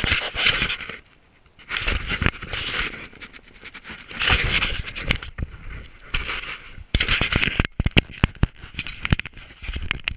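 Handling noise from a wearable action camera: jacket fabric rubbing and scraping across the microphone in several bursts, then a run of sharp clicks and knocks in the last few seconds.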